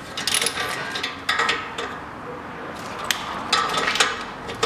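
Ratchet wrench on a long socket extension working a nut loose: the pawl clicking and metal tool clinks in several short bursts.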